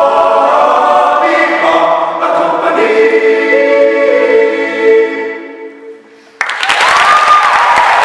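Men's a cappella group singing the closing chords, the last chord held and then fading out about five seconds in. After a brief pause the audience breaks into applause with cheering.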